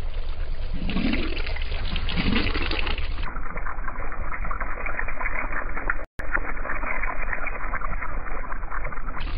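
Car tyre rolling over balloons filled with water beads, bursting them: a continuous wet crackling and squelching as the beads are crushed and scatter. The sound turns duller about three seconds in and cuts out for an instant about six seconds in.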